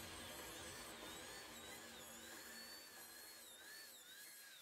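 Faint whine of a dental high-speed handpiece cutting a front tooth down for a crown, its pitch dipping and recovering again and again as the bur bears on the tooth.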